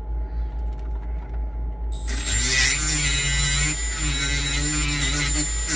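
Over a steady low hum, a Milwaukee die grinder with a Scotch-Brite pad starts about two seconds in. It runs with a high steady whine and a scrubbing noise as the pad cleans corrosion off a crusty boat ground terminal.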